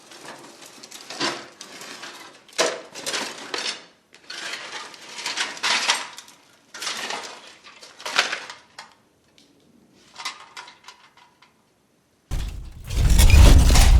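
Metal objects clanking, rattling and scraping in a run of separate bursts a second or two long. About twelve seconds in, a much louder, heavier metallic crashing sound with a deep rumble starts suddenly.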